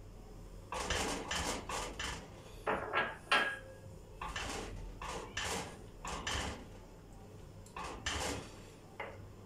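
A spoon scraping and knocking against the sides of a pot while sugar is stirred into a blended carrot and apricot mixture. The strokes come in short runs with brief pauses between them.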